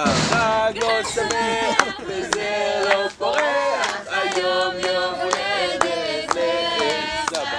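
A group of people singing together in chorus, clapping their hands along with the song.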